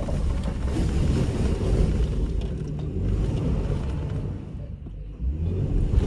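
Car pulling onto a snowbank, heard from inside the cabin: a steady low rumble of engine and tyres working in snow, easing briefly about five seconds in.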